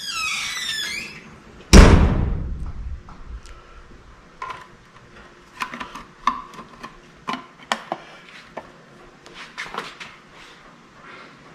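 Hand work on the Bridgeport mill motor's switch housing: a brief wavering squeak at the start, one loud metallic clunk that rings out about two seconds in, then light clicks and taps of screws, screwdriver and the switch cover being fitted.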